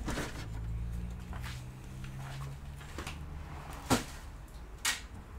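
Glass side panel of a PC case being lifted off and put down, with two sharp knocks about a second apart near the end. A low steady hum runs under the first half.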